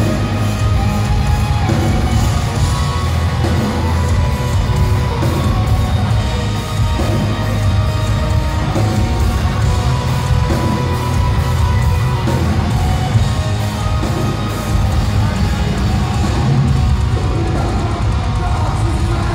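Post-black metal band playing live at full volume: distorted guitars, bass and drums in a dense, unbroken wall of sound, with rapid cymbal hits throughout.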